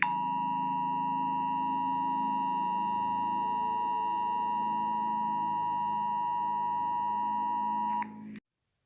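Emergency Alert System attention signal: the 853 Hz and 960 Hz two-tone alert held steady for about eight seconds, then cutting off suddenly.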